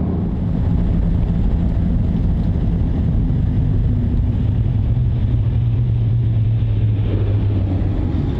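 Truck driving on the road: a steady low engine and road drone, with a low hum that grows stronger through the middle and eases near the end.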